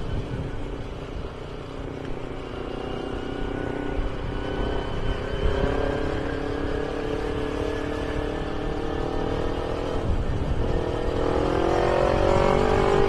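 Kawasaki Ninja 250R's carbureted parallel-twin engine running through an AHM carbon racing exhaust as the bike rides along. The engine note climbs, dips about ten seconds in, then climbs steadily again under throttle.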